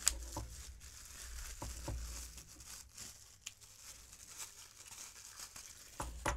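Plastic packaging bag crinkling and rustling irregularly as a boom-arm desk clamp is pulled out of it by hand, with a few sharper clicks about six seconds in.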